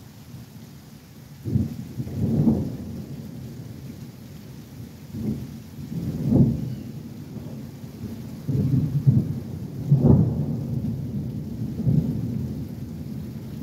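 Rolling thunder: several deep rumbles that swell and fade one after another.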